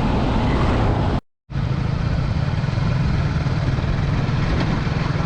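Honda CBR150R single-cylinder motorcycle engine running steadily under way, with road and wind noise. The sound drops out completely for a split second just over a second in, then resumes unchanged.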